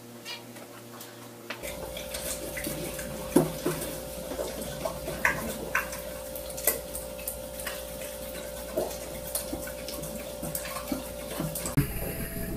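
Scattered light clinks of a spoon against a small cup, over a steady hum.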